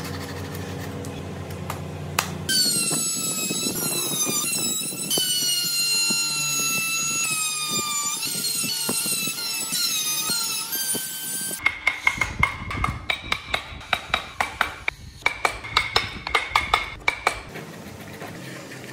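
A hand fret saw cutting through a wooden block. Then a hand-held rotary carving tool whines at high speed, its pitch dipping and recovering as the bit bites into the wood. Then comes a run of sharp taps, about three a second, from a chisel working the wood; these are the loudest sounds.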